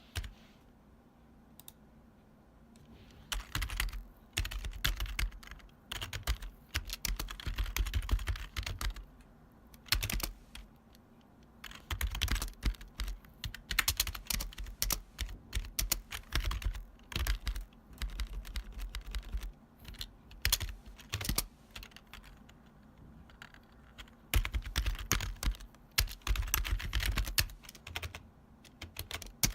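Typing on a retro long-travel computer keyboard: loud, clacky keystrokes in fast runs of several seconds with short pauses between, each stroke with a deep thud as the keys bottom out.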